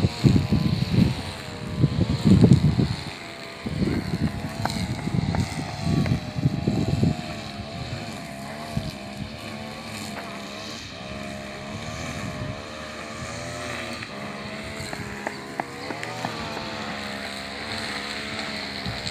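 A motor drones steadily in the background, its pitch wavering up and down. For roughly the first seven seconds, strong low rumbling buffets on the microphone lie over it.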